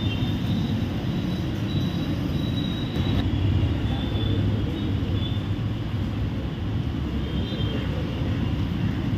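Steady low rumble of outdoor background noise, with faint short high chirps now and then.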